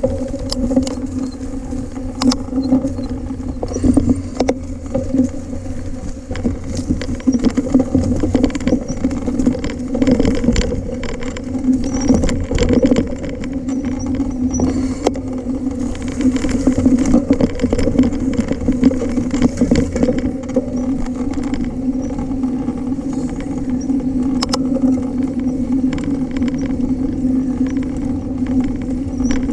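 A 29er full-suspension mountain bike being ridden along a dirt trail: a steady hum from the moving bike, with rumble and scattered knocks and rattles from the rough ground.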